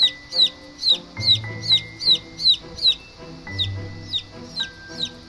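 Baby chick peeping loudly and over and over, about two to three short falling peeps a second, growing fainter in the last couple of seconds. It is the distress peeping of a chick separated from the other chicks. Background music plays underneath.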